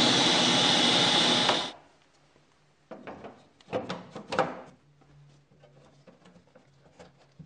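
Rockwell Beaver 9-inch table saw with its 1.5 horsepower motor running at full speed on 240 volts, cut off abruptly after under two seconds. Then a few scrapes and knocks as a flexible dust-collection hose is pushed onto the sheet-metal dust port under the saw.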